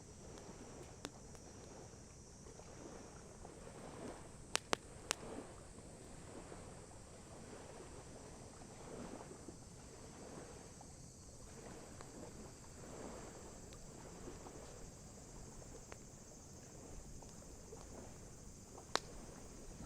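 Wood campfire crackling, with a few sharp pops: three in quick succession about five seconds in and one near the end. Underneath are a soft, swelling wash and a steady high-pitched drone.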